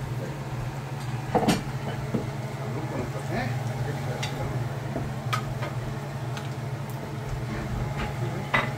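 Eggs frying in a pan of hot oil: steady sizzling with scattered pops and crackles. Sharper pops come about a second and a half in and near the end, over a steady low hum.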